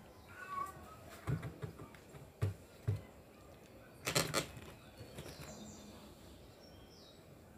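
A few soft knocks and a short burst of crackling handling noise about four seconds in, as slices of cheese are laid by hand into an aluminium lasagna pan. A few faint bird chirps come in over it.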